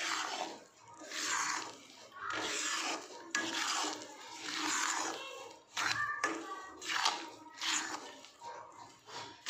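Steel spatula scraping and stirring besan as it roasts in ghee in a metal kadai: rasping strokes against the pan, about one a second.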